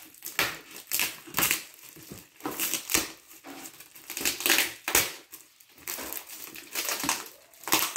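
Scissors cutting through the clear plastic wrap and packing tape on a cardboard box, with the plastic crinkling as it is peeled back: a string of short, irregular crunchy cuts and rustles, about one or two a second.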